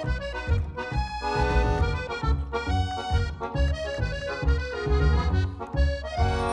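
Background music led by an accordion-like reed melody over a steady bass beat.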